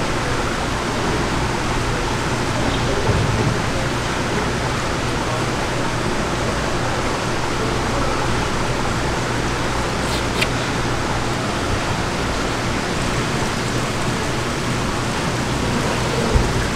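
Steady rushing noise like running water, over a low steady hum, with a single sharp tick about ten seconds in.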